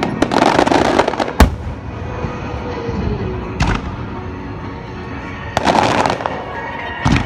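Aerial firework shells bursting: a string of sharp bangs, the sharpest about a second and a half in. Near the start there is a spell of dense crackling from the glittering stars, and another quick cluster of bangs comes about six seconds in.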